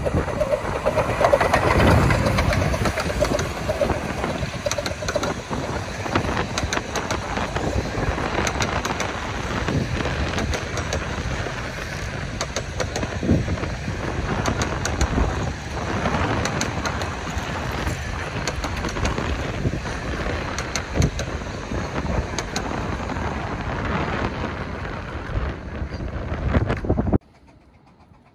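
A 15-inch-gauge miniature steam locomotive and its train of coaches running past close by, with many sharp clicks from the wheels over the rail joints as the coaches roll by. The sound cuts off abruptly near the end.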